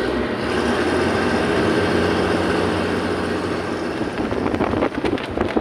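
A motor engine running steadily with a low hum, with wind noise over it; near the end it breaks into a rapid run of crackles.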